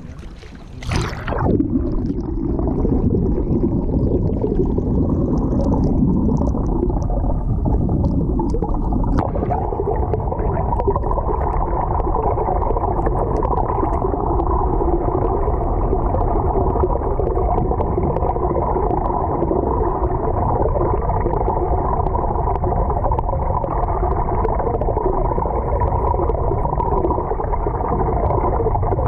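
Underwater sound picked up by a GoPro Hero5 Black held under a flowing river. There is a brief splash as it goes under about a second in, then a loud, steady, muffled rushing rumble of the current past the camera.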